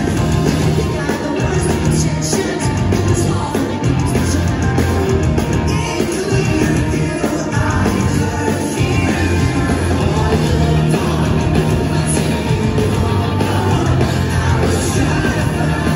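Pop-punk band playing live: electric guitars, bass and drums under a lead singer, loud and steady.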